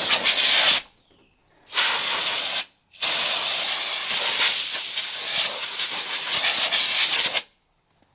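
Compressed-air blowgun blasting in three bursts: one ending just under a second in, a short one about two seconds in, and a long one of about four seconds ending near the end. It is blowing drilling debris away from the freshly drilled holes in the truck's body panel.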